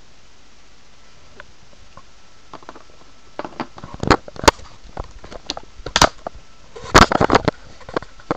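Handling noise: an irregular run of sharp knocks, clicks and rubs as the phone is picked up and knocks against a clear plastic tub. The loudest knocks come in a cluster about four seconds in and another about seven seconds in.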